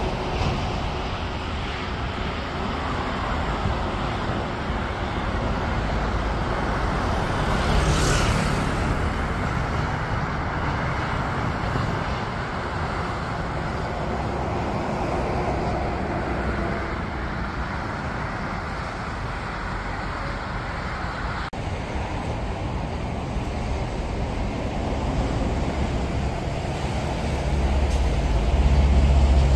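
Jet airliners on landing approach: a steady rumble of engine noise that swells about eight seconds in, changes abruptly about two-thirds of the way through, and deepens and grows louder near the end.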